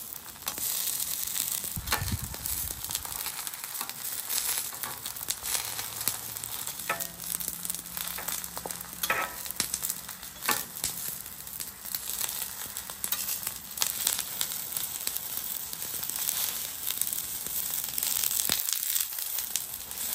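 Roma tomatoes, onion and jalapeños sizzling in avocado oil on a hot stainless steel flat-top griddle. Scattered clicks and scrapes come from a metal knife and spatula against the steel as the vegetables are cut and turned.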